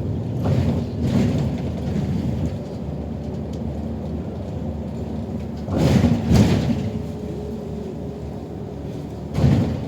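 Inside a moving city bus: steady engine and road rumble, broken by two short, loud rushes of noise about six seconds in and again near the end.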